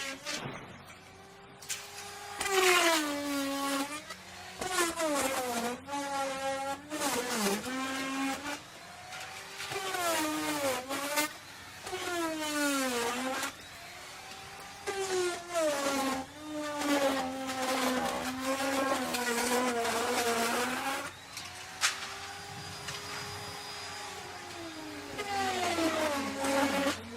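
Electric wood router running and cutting. Its motor whine repeatedly drops in pitch as the bit bites into the wood and climbs back as it frees up, over many passes, with one sharp click past the middle.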